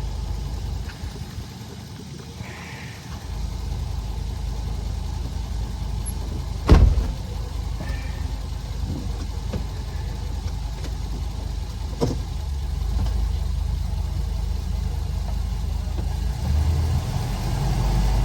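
Ford E-450 ambulance's 6.8L V10 engine running steadily with a low rumble that gets louder about three seconds in. A single loud thump comes about seven seconds in, and a smaller knock near twelve seconds.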